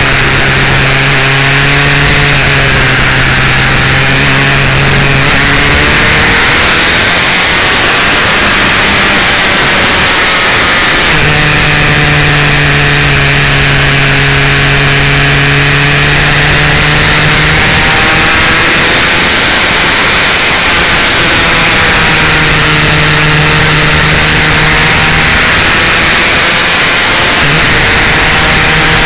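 Onboard sound of a sport motorcycle's engine running at mid revs, its note easing and rising gently with the throttle through bends. A loud, steady rush of wind noise runs over it and briefly swamps the engine a few times.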